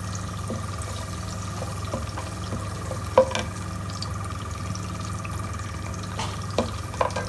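Whole spices heating in oil in a nonstick pan with a faint sizzle, stirred with a plastic spatula that taps against the pan a few times, once sharply about three seconds in and twice near the end. A steady hum runs underneath.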